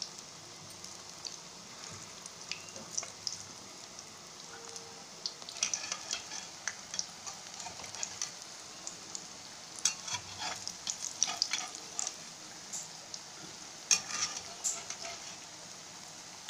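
Gram-flour pakoras deep-frying in hot oil in a kadhai: a steady sizzle with crackling pops that get busier after about five seconds, and one sharp pop near the end.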